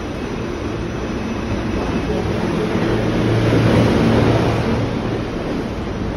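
Steady rumble and low hum inside a New York City subway car, growing louder for a couple of seconds midway while passing through the end door between cars.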